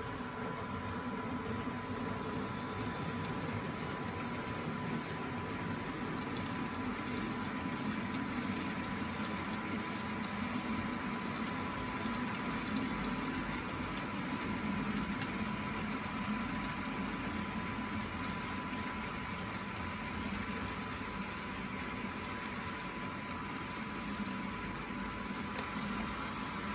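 Steady hum and hiss from a standing Roco H0 class 139 electric locomotive model's sound decoder, playing its stationary-locomotive sounds with a constant high tone. A model freight train runs past on the neighbouring track around the middle.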